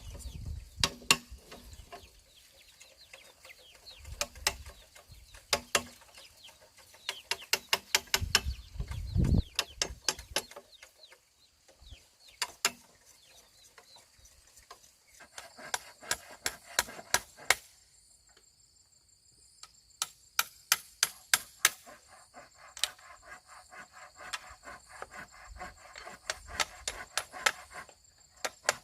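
Runs of quick, sharp knocks and taps from bamboo being worked with hand tools. A steady high insect drone comes in about two-thirds of the way through.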